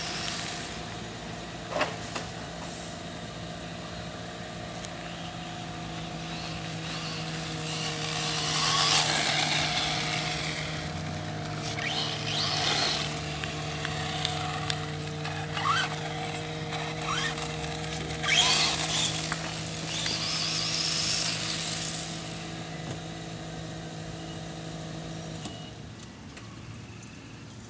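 Traxxas Slash 4x4 RC truck with a Castle Sidewinder brushless motor driving on asphalt: the motor whines and the tyres hiss in several swells as the truck speeds up and passes. A steady low hum with a few fixed tones runs underneath and stops a couple of seconds before the end.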